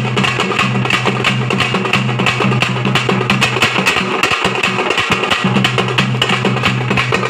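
Thappattam drum ensemble: thappu frame drums, a large stick-beaten bass drum and smaller strapped drums played together in a fast, dense, unbroken rhythm. A steady low tone runs underneath and drops out for about a second and a half past the middle.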